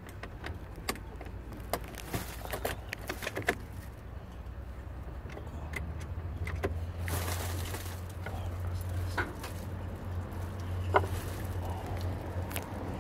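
Light clicks and jingles of keys and door hardware being handled, most in the first few seconds, over a steady low hum.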